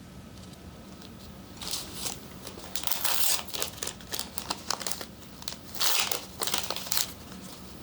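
A packaging wrapper crinkling as it is handled, in irregular bursts of crackling.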